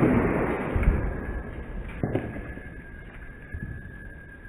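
Fireworks: the echo of a bang fading away, with smaller pops about one and two seconds in.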